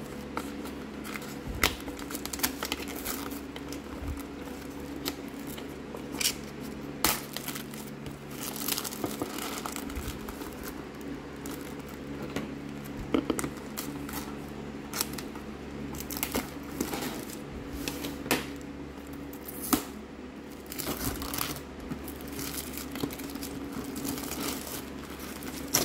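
Clear plastic shrink-wrap being picked at, torn and peeled off a hard plastic case by hand: irregular crinkling and crackling with sharp tearing snaps.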